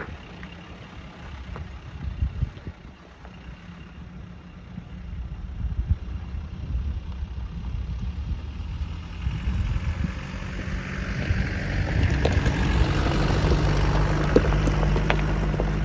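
Off-road 4x4 engine running steadily at low revs. From about nine seconds in, a rushing wash of noise builds up and grows louder towards the end.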